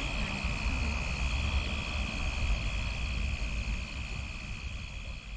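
Night-time chorus of small animals calling at the pond's edge: a steady, high-pitched trill over a low rumble, fading a little toward the end.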